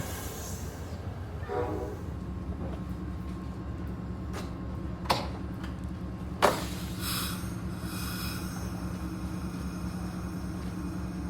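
Train rumbling with a steady low hum, a brief tone about a second and a half in, and three sharp knocks between about four and a half and six and a half seconds in.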